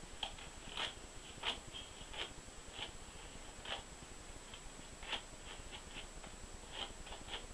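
Hairbrush stroking through damp, thick natural hair: about a dozen short, scratchy brushing strokes at uneven intervals.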